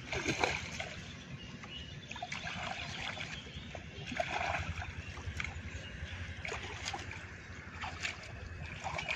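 Shallow muddy water sloshing and splashing in irregular bursts as hands grope and scoop through it while hand-fishing, over a steady low rumble.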